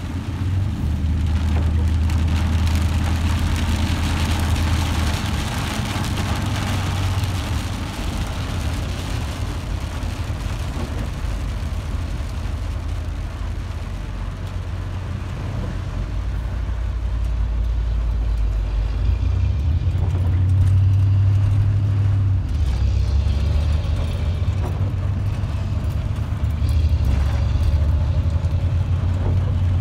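Inside a car driving on a rain-soaked road: a steady low engine and road drone with tyre hiss from the wet pavement.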